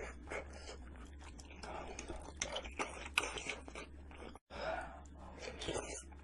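Eating sounds: a person chewing and crunching food, with a run of crisp crunches, the loudest about three seconds in. The sound cuts out completely for a moment about four and a half seconds in, then the chewing carries on.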